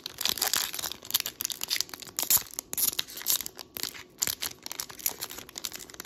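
Foil wrapper of a One Piece Card Game booster pack being torn open and crinkled by hand: a dense, irregular run of sharp crinkles and rips.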